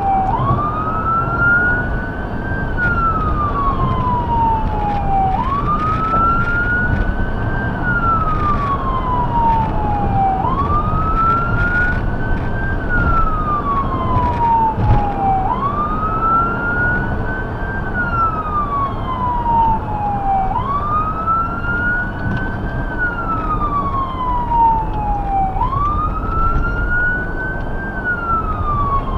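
Electronic siren of a Ford Explorer emergency response vehicle sounding a wail while driving: a tone that rises over about two seconds and falls over about three, repeating about every five seconds. A steady road and engine rumble runs beneath it.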